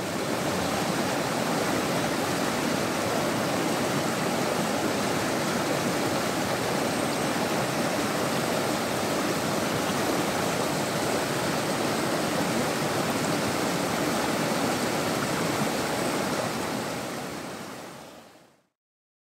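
Rushing river water pouring over boulders in rapids, a steady noise that fades out near the end.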